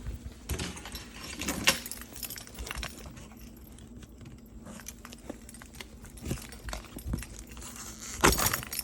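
Hands handling a shipping box and its packing: scattered clicks and light rattles, with a louder clatter near the end.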